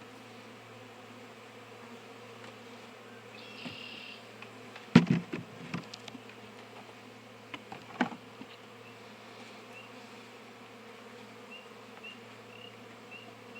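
Steady buzzing of honeybees from an opened hive, with two sharp knocks about five and eight seconds in.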